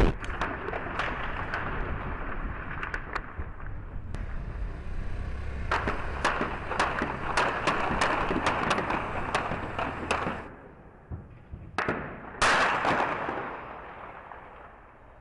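Gunfire in a street battle: many sharp shots crack out irregularly over a rumbling, noisy bed for about ten seconds. A single louder blast follows near the end and fades away.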